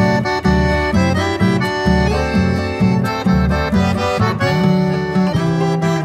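Accordion-led music with guitar over a bouncing bass line of about two notes a second.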